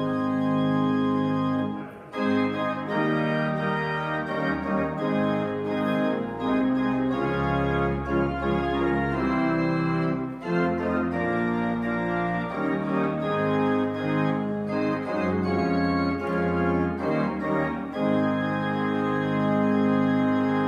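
Church organ playing a postlude: sustained chords over a deep pedal bass, changing every second or so, and stopping right at the end.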